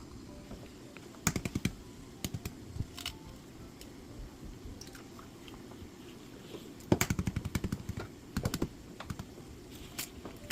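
Kitchen utensil clattering against cookware in several short bursts of rapid clicks, the longest about seven seconds in, over a steady low kitchen background.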